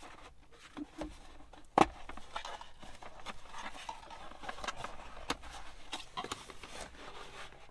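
Hands opening a small stiff cardboard accessory box: light scrapes and taps of handling, with one sharp knock a little under two seconds in.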